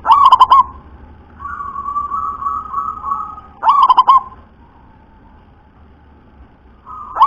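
Zebra dove (perkutut) cooing: three short bursts of rapid staccato notes about three and a half seconds apart, with a softer drawn-out coo between the first two.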